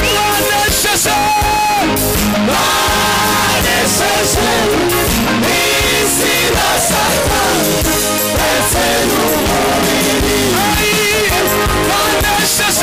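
Gospel group singing live into microphones: lead and backing voices over instrumental accompaniment with a steady beat, loud throughout.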